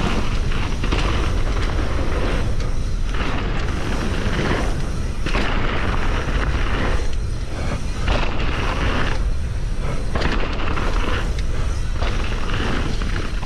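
Wind buffeting a chest-mounted GoPro while knobby mountain-bike tyres rumble over a dirt trail at riding speed: a loud, continuous low rumble that swells and dips.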